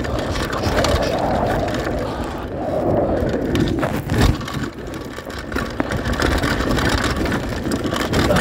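Mountain bike riding fast down a dirt trail: knobby tyres rumbling over dirt and stones, with the bike rattling and knocking over bumps. One sharp knock stands out a little after four seconds.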